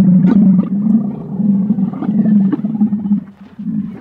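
Camel giving one long, low, rough groan with a rapid rattle in it, wavering in loudness and fading out at the end.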